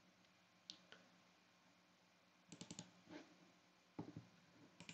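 Faint clicking at a computer, mouse and keys: a single click about a second in, a quick run of four clicks about halfway, then a few more near the end.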